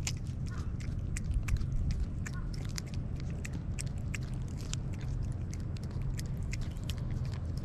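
A cat licking paste from a hand-held squeeze-tube treat: quick, irregular wet licking clicks, several a second, over a low steady rumble.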